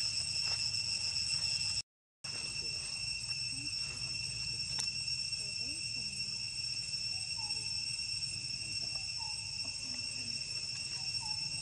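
Steady, high-pitched insect drone holding one constant tone, with faint short chirps scattered through it. The sound cuts out completely for a moment about two seconds in.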